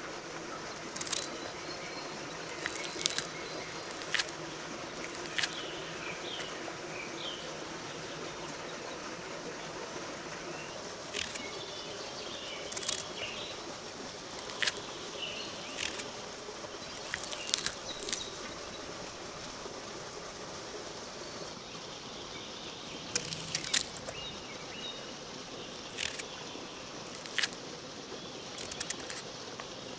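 A knife cutting and scoring the tough rind of pomegranates, making irregular sharp cracks and clicks, often one to two seconds apart, with a quick cluster a little before the end.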